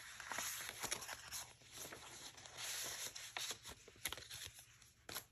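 Faint rustling and crinkling of paper as an envelope and the cards in it are handled and folded, with small taps and clicks scattered through.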